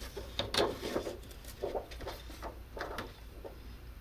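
A thin single-layer 3D-printed plastic sheet crinkling and crackling as it is flexed and handled, in short irregular bursts.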